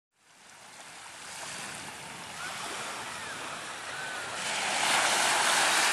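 Small waves washing onto a sandy beach, with wind on the microphone. The sound fades in from silence and grows louder about four and a half seconds in.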